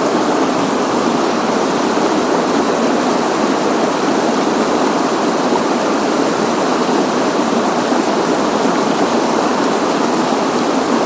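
Small river running over a shallow riffle: a steady rushing and babbling of water.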